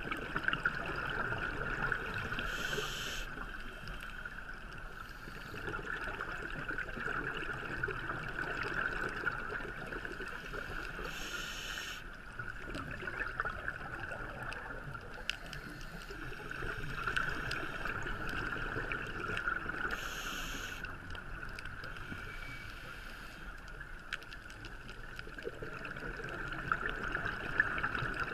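Underwater sound on a scuba dive: a steady hiss with fine crackling throughout, and the diver's exhaled bubbles rushing up in a short burst about every nine seconds.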